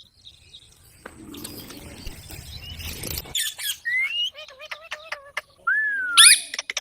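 Pet parrot calling: a run of short chirps and rising whistled calls, ending in one loud rising, wavering call. Before the calls, a rustling noise.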